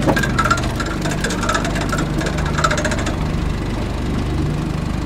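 Boat engine idling steadily, with a rapid clicking rattle over roughly the first three seconds.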